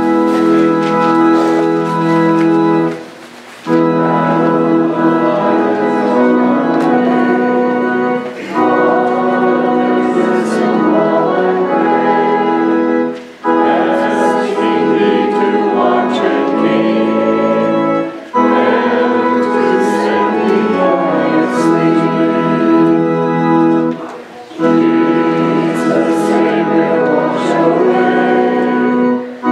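Church organ ending a hymn introduction, then the congregation singing an evening hymn with the organ. It moves line by line, in phrases of about five seconds with a short breath between them.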